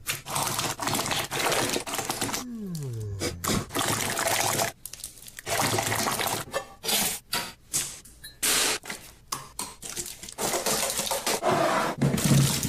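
A hand squelching and slopping a wet, mushy food mixture in a bowl, in irregular noisy bursts with brief gaps.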